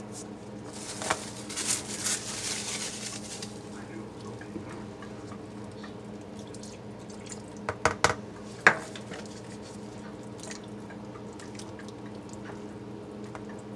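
Plastic cling wrap crinkling as it is peeled off a bowl, then a quick cluster of three or four sharp knocks about eight seconds in, over a steady low hum.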